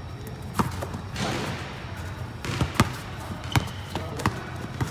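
Basketball bouncing on a court surface during a pickup game: several sharp, irregularly spaced bounces over a steady low hum.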